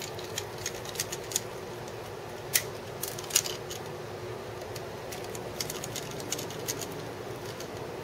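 Scattered light metallic clicks and ticks of a screwdriver and small screws as the display bracket screws of a Dell XPS 17 laptop lid are taken out, over a steady low hum.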